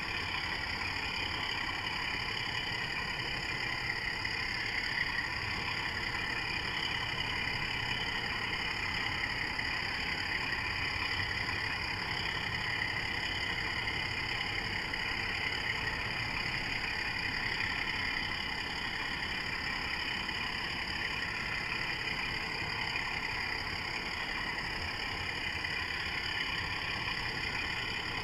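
Model Class 24 diesel locomotive running steadily through the yard: a continuous engine-like drone with a faint whine that wavers slowly in pitch.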